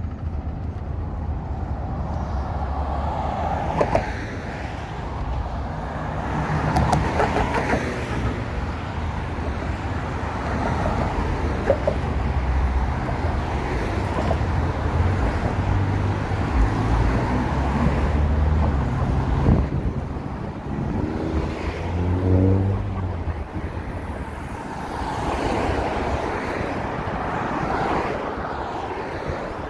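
Busy multi-lane road traffic passing close by: cars going past in waves of tyre noise and engine hum. Past the middle, one vehicle's engine rises in pitch as it accelerates.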